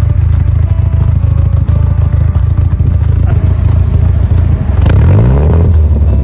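Car engine running, heard at the tailpipe, with a choppy, uneven exhaust note. About five seconds in the engine speed rises, and it then runs higher and steadier.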